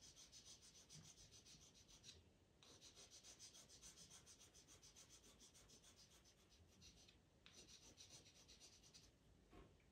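Faint scratching of a pastel pencil drawing rapid short strokes on pastel paper, in three runs with brief pauses a couple of seconds in and near the end.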